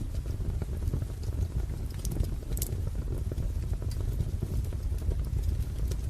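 Wood fire crackling: a steady low rumble of flames with scattered sharp pops and snaps, the loudest about two and a half seconds in and another right at the end.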